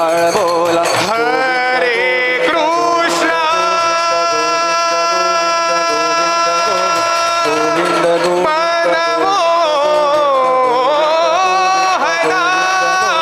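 Male voices sing a devotional aarti with hand-drum accompaniment. A long note is held for about four seconds, a few seconds in, before the melody moves on in ornamented, gliding phrases.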